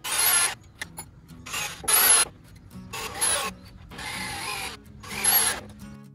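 A hand tool rasping on wood in about five slow, separate strokes, each about half a second long, over faint background music.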